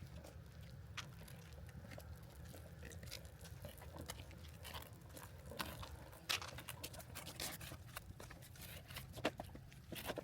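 Faint crunching, clicks and rustles of a toddler eating a snack, over a steady low rumble, with a few sharper clicks in the second half.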